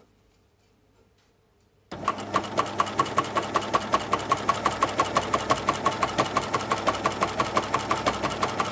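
Flatlock coverstitch machine starting up about two seconds in and sewing at a steady speed, with a rapid, even clicking of the needle stroke. It is stitching a three-fold 18 mm binding through thick fleece-backed knit.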